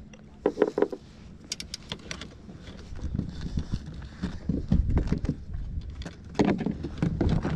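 Irregular clicks and knocks from fishing gear being handled aboard a plastic kayak, over a low uneven rumble that grows louder about halfway through.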